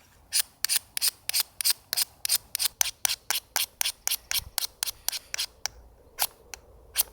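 Ferro rod fire starter struck over and over with its scraper, quick rasping strokes about four a second, thinning to a few single strikes near the end: repeated attempts to throw sparks into tinder that is not catching.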